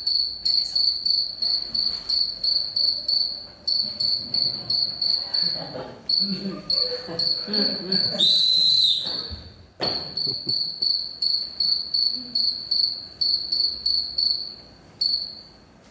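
Cricket chirping: a steady run of short, high-pitched chirps, about three to four a second, with a brief louder whistle-like tone about halfway through.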